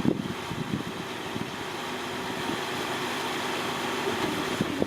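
Off-road Jeep engine idling steadily, with a couple of short knocks near the start and near the end.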